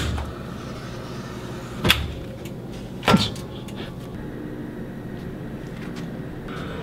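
Robotic luggage-storage system clunking three times, at the start, about two seconds in and about three seconds in, over a steady machine hum as the robot arm and delivery hatch work.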